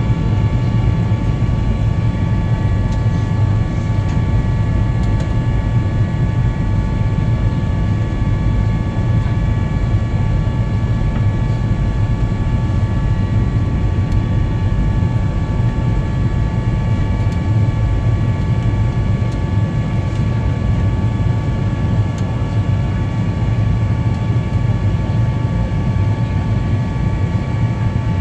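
Airliner cabin noise during the descent to land: the engines and rushing air make a steady low drone, with several steady high whining tones above it.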